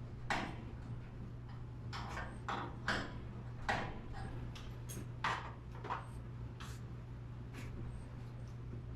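Garage door torsion springs being wound with steel winding bars: irregular sharp metallic clicks as the bars go into and come out of the winding cone, over a steady low hum.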